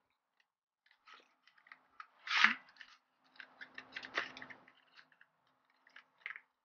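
Lip gloss tube and its cardboard box being handled: a run of small clicks and rustles, with one louder rustle about two and a half seconds in. Near the end the gloss cap is twisted off and the applicator wand drawn out.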